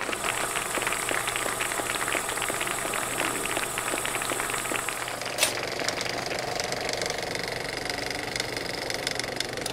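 Film projector running as a sound effect: a steady rapid clatter of clicks over a low motor hum, with one sharper click about five and a half seconds in.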